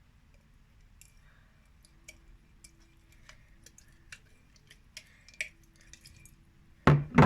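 Clear jiggly slime being handled, making faint scattered clicks and small squishes. Two loud short sounds come close together near the end.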